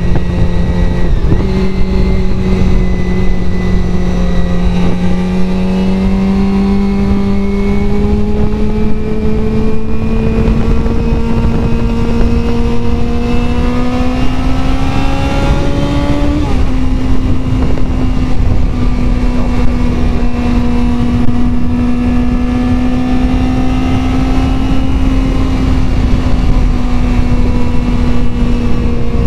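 Honda CBR400RR inline-four motorcycle engine running at steady cruising revs, heard from the rider's helmet. The engine note climbs slowly for about sixteen seconds as the bike gathers speed, dips slightly, then holds steady, over a constant low rush of wind on the unshielded microphone.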